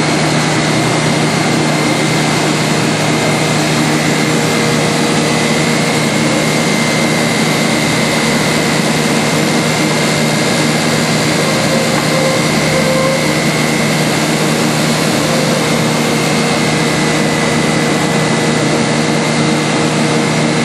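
Combination jointer-planer running steadily: a loud, even machine noise with a constant hum and whine that does not change.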